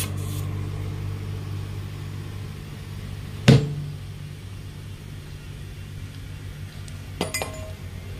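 Steady low hum of an air hose with a clip-on chuck filling a 10.00 R20 truck tyre's tube, with one sharp knock about three and a half seconds in and a few light clicks near the end.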